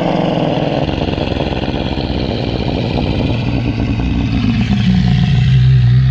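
Film sound effect of a hadrosaur (duck-billed dinosaur) call: a loud, rough, rumbling bellow held for several seconds, settling into a low steady drone near the end.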